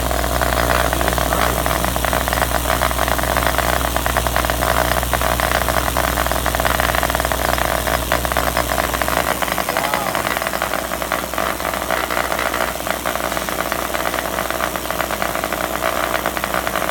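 JL Audio W0 10-inch subwoofer driven straight from mains AC through a wall socket: a loud steady hum with a harsh crackling, rattling buzz as the driver overheats and burns out. About nine seconds in, the deepest part of the hum drops away and the rattling buzz carries on.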